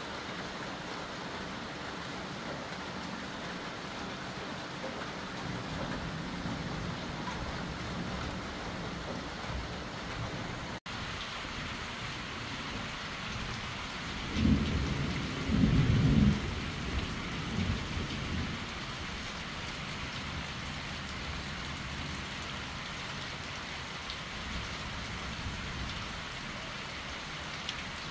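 Steady heavy rain falling throughout. About halfway through, a loud low rumble of thunder lasts a couple of seconds, followed by weaker rumbles.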